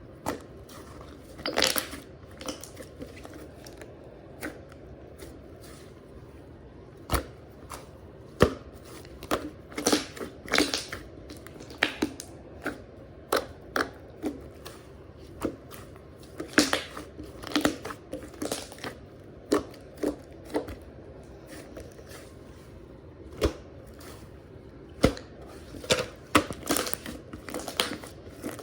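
Slime being squeezed and pressed by hand, giving irregular sticky pops and clicks, up to a few a second, with quieter squishing between them.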